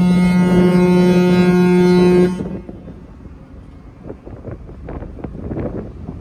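Ship's whistle of the passenger ferry Sarubia Maru sounding one long, steady blast as she departs, cutting off about two seconds in. Wind buffets the microphone after it stops.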